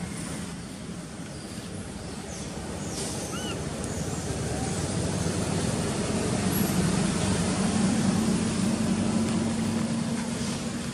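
A motor vehicle's engine droning as it passes, growing louder to a peak about two-thirds of the way through, then fading.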